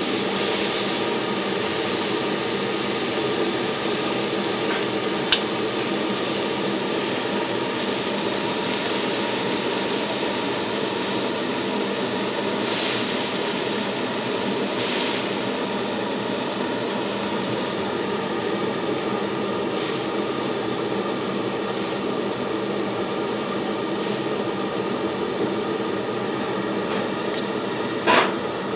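Steady kitchen noise at a street-food steak stall: an even hiss over a constant machine hum, with a sharp click about five seconds in and a brief clatter near the end.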